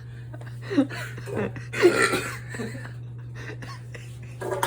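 A person coughing and making short throat noises, the loudest about two seconds in, over a steady low hum.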